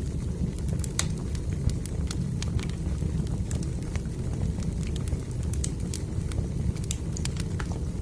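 Fire burning in a fireplace: a steady low rumble of flames with frequent, irregular sharp crackles and pops.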